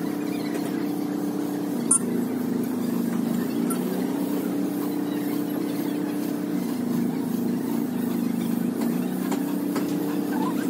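An engine or motor running steadily with a low drone that dips and recovers in pitch a couple of times. There is a single sharp click about two seconds in.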